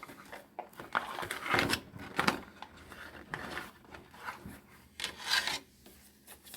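Oracle cards being shuffled and handled by hand, a series of irregular rasping, rubbing strokes and light taps as the reader looks for a clarifying card.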